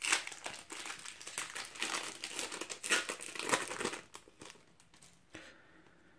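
A foil trading-card packet being torn open and crinkled by hand, a dense crackling rustle. About four seconds in it fades to faint handling of the cards.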